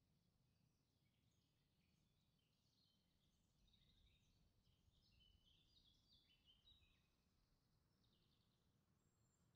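Near silence, with faint high chirping notes through the middle.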